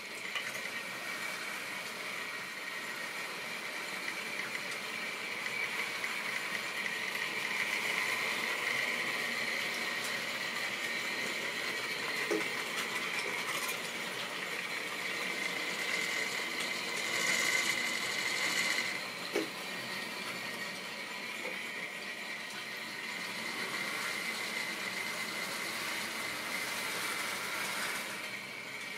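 OO gauge model trains running around the layout: a steady whine from the locomotives' small electric motors, with the wheels rattling over the track. A few single clicks, and it gets louder for a couple of seconds about two-thirds of the way through.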